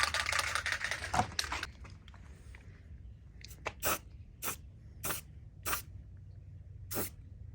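Aerosol spray paint can spraying: a continuous hiss for about a second and a half, then a series of short spray bursts, sealing the freshly deburred edges of a hole cut in sheet metal.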